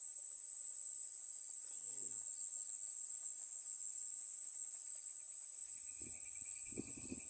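Steady, high-pitched insect chorus with a continuous shrill trill. A second, lower trill with a rapid pulse joins near the end.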